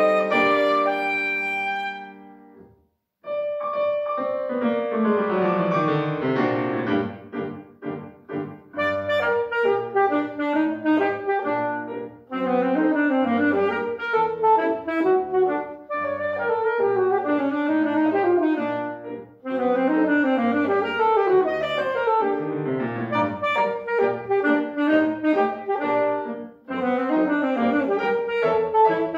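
Saxophone and grand piano playing a classical duo. A held note ends about two seconds in and is followed by a short pause. A descending run and a fast, rhythmic passage follow.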